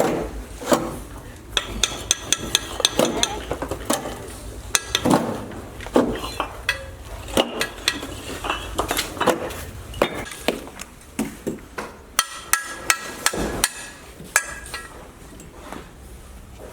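Irregular metallic clinks and knocks of hand tools striking hard material, coming in quick runs of several strikes with short pauses, some ringing briefly.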